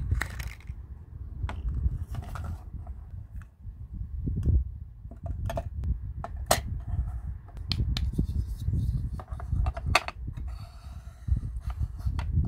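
Miniature plastic toy pieces being handled and set down on a hard countertop: a scattered series of sharp clicks and taps over a steady low rumble.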